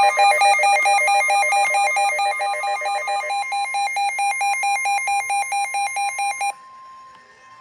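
Emergency alert tones opening a severe thunderstorm warning: fast electronic beeping layered over a steady high tone. The beeping stops about six and a half seconds in, leaving the steady tone on its own, more quietly.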